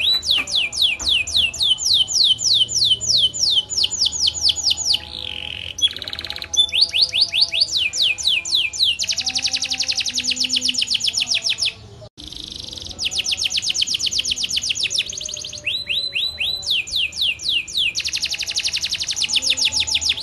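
Domestic canary singing a long, loud rolling song: fast trills of rapidly repeated down-slurred notes, in phrases that change speed and pitch, with a brief break about twelve seconds in.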